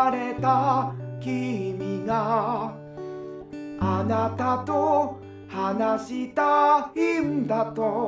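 A ballad-style song: a solo singer with vibrato over acoustic guitar and long held bass notes, sung in phrases with short breaks between them.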